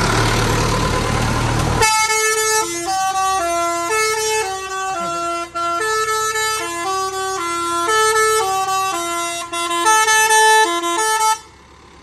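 A truck's telolet basuri horn playing a tune of short stepped notes in two parts, cutting off abruptly near the end. Before it, about two seconds of loud engine and rushing noise.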